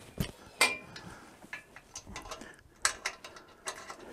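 Steel parts of a homemade chainsaw mill's log-lifting arm clinking and clicking as the locking pin and arm are handled against the toothed rack: half a dozen irregular metal clinks, one ringing briefly about half a second in.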